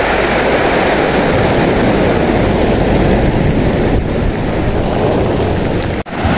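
Steady rushing of sea surf mixed with wind buffeting the microphone, breaking off abruptly near the end.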